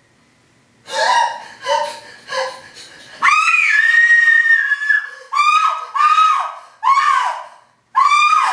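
High-pitched shrieking cries from a voice: three short cries, one long held cry in the middle, then four short cries that each fall in pitch.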